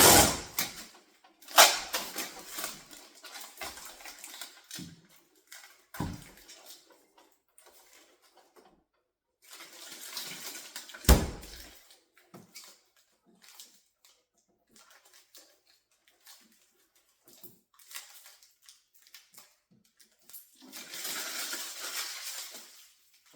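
Refrigerator packaging being handled: bursts of rustling and scraping, with a few knocks and one heavy thud about eleven seconds in.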